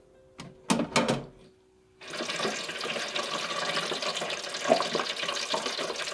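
French fries lowered into deep-fryer oil for their second fry. About two seconds in, a dense, steady crackling sizzle of oil bubbling around the fries starts suddenly. A couple of brief clatters come before it.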